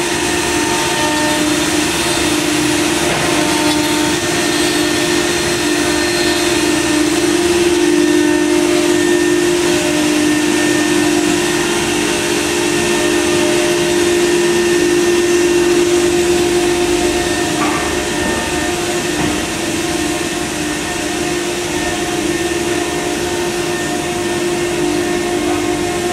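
CNC router running while cutting wood: a steady spindle whine over the rushing noise of its dust extraction.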